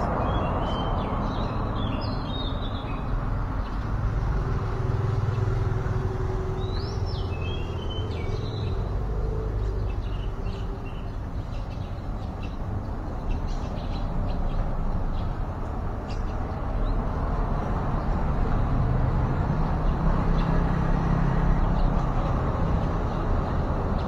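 Steady low background rumble throughout, with a few short high bird chirps near the start and again about seven seconds in.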